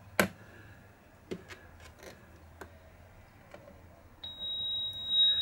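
A few faint clicks of jumper wires being pushed into a solderless breadboard. About four seconds in, a steady high-pitched tone starts suddenly. This is the 4069 hex-inverter oscillator sounding through a loudspeaker driven by a step-down transformer, which makes it much louder.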